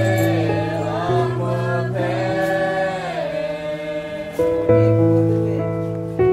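Music: a choir singing over held chords that change every second or two.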